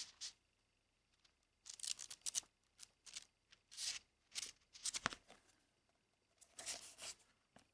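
Faint paper rustles and flicks, in short clusters of a few at a time, as the pages of a San-X Tare Panda paper memo pad are leafed through and the pad is turned over in the hands.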